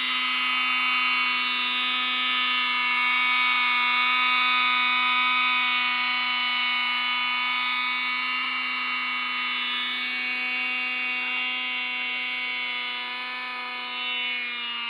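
O.S. .28 two-stroke glow engine of a 1980 GMP Cricket RC helicopter running steadily in flight, a high, even buzz; its pitch drops a little near the end.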